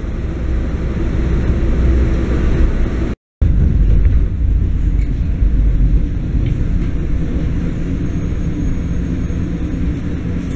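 Steady low rumble inside a running city bus, then after an abrupt cut about three seconds in, the steady low rumble inside a running Market-Frankford Line subway train car.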